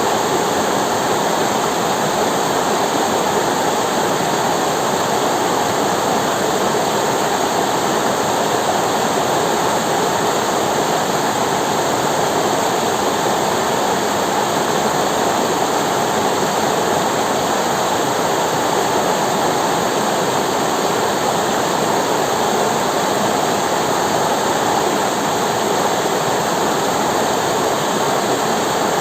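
River water flowing and rushing over rocks, a steady, unbroken rush.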